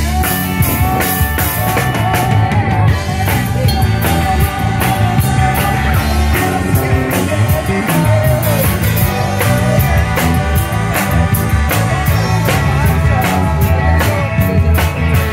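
Live rock band playing: a drum kit keeping a steady beat under electric guitars and bass, with a woman singing the lead.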